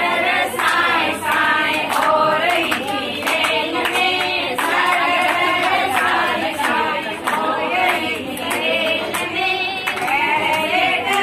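A group of women singing a Marwari folk wedding song (vivah geet) together without instruments, with hand clapping in time.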